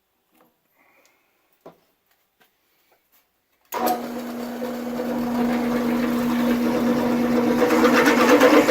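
A few faint clicks, then about four seconds in a drill press motor starts suddenly and runs with a steady hum, growing louder toward the end as the 11/16-inch bit resumes drilling through 3/4-inch steel.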